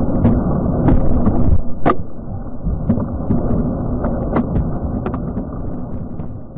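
Deep rumble of dynamite blasting in rock, with sharp cracks scattered through it, easing after about two seconds and dying away near the end.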